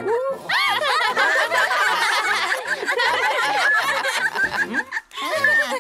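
Several cartoon characters' voices laughing and giggling together, over background music with a bass line of about two notes a second.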